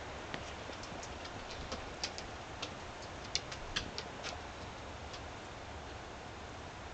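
Steady wind rumbling on the microphone, with a scatter of irregular sharp clicks and ticks through the first four seconds.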